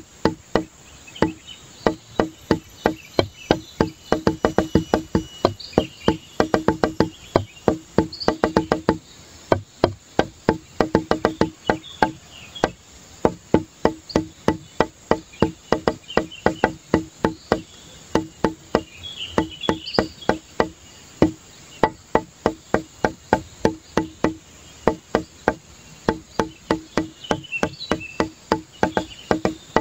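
Background music with a fast, even clicking beat over a low repeated note.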